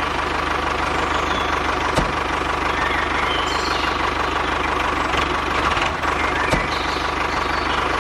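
Engine running at a steady idle, just after being started, with a fast, even chugging pulse. Two short clicks come at about 2 and 6.5 seconds in.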